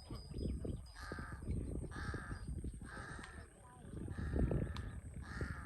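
Large-billed crow cawing, five harsh caws about a second apart, over a low rumble.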